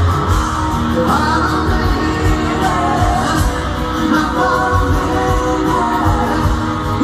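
Live rock band playing through a concert sound system: a singer's voice over guitar and a steady low bass.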